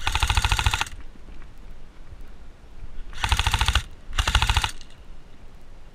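Airsoft electric gun (AEG) firing three short full-auto bursts: a long one at the start, then two quick ones close together about three seconds later.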